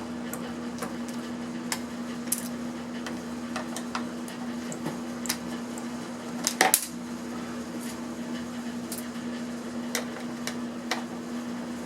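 Scattered small metallic clicks and clinks of screws and a screwdriver as a plastic-cased electronic device is unscrewed and taken apart, with a brief louder clatter about six and a half seconds in. A steady low hum runs underneath.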